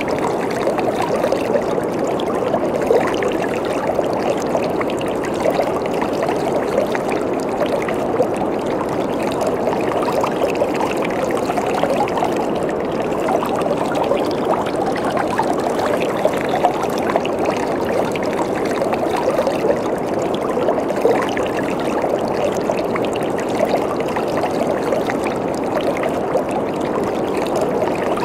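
Waterfall: water falling and splashing in a steady, continuous rush with small crackling splashes throughout.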